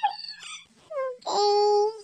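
A cat meowing: a short falling call about a second in, then one long, loud meow held on one pitch.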